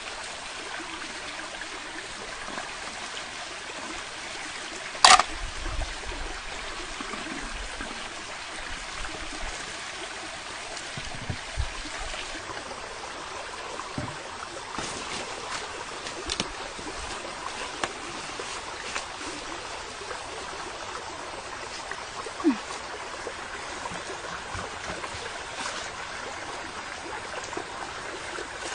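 Water running over a rocky stream bed, a steady rushing hiss, with one sharp knock about five seconds in and a few lighter clicks and knocks.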